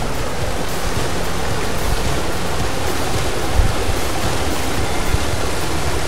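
Waterfall: a steady, loud rush of falling water, with uneven low rumbling underneath.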